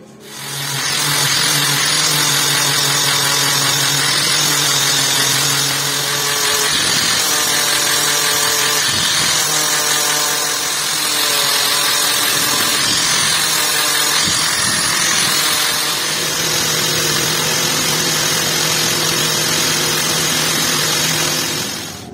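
Electric power tool working on the knife or its handle. It spins up at the start, runs steadily under load with a loud hiss, and winds down near the end.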